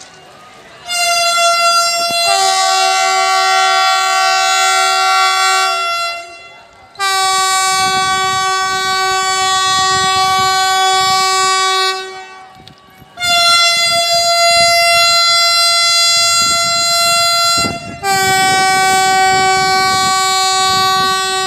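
Vande Bharat Express train sounding its horn as it approaches: four long blasts of about five seconds each, separated by short gaps.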